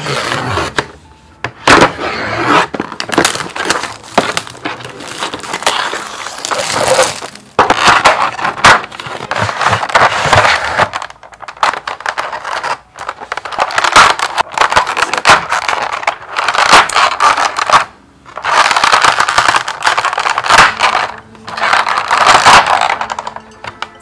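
Crinkling and crackling of a clear plastic keycap tray being handled, in several bursts with short pauses.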